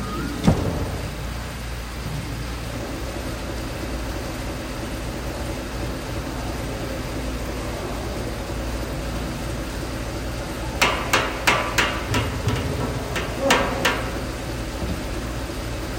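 A pair of hex dumbbells knocking on the gym floor as they are set down, about eight sharp knocks in quick succession starting near eleven seconds in. There is a single knock about half a second in, over a steady background hum.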